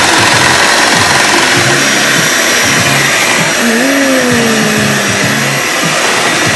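Hamilton Beach electric hand mixer running steadily, its beaters whirring through thick banana bread batter in a bowl.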